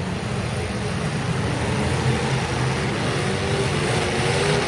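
Motor-vehicle engines running with a steady low rumble, one engine's tone rising slowly in the second half.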